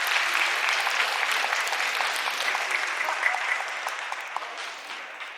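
Sumo hall audience applauding, a dense patter of clapping that fades away over the last couple of seconds.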